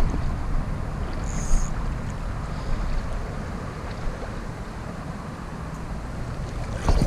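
Wind rumbling on the microphone over a steady wash of water, with a few handling knocks near the end.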